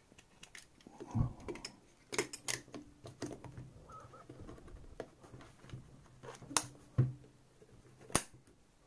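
Zeiss Ikon Contaflex Super B camera's removable back being fitted onto the metal body and its locking key on the base turned: a scattered run of sharp clicks and small knocks with light handling rubs between, the loudest clicks near the end.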